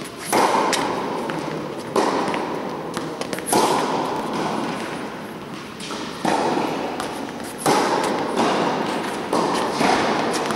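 Tennis balls struck by rackets and bouncing on an indoor court during a baseline rally, a sharp pock every second or two. Each hit is followed by a long booming echo from the large hall.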